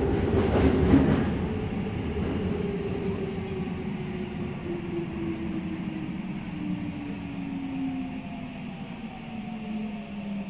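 Inside a Saitama Railway 2000 series electric train braking into a station: the traction motor whine glides steadily down in pitch as the train slows, over a rumble that fades. There is some wheel clatter in the first second.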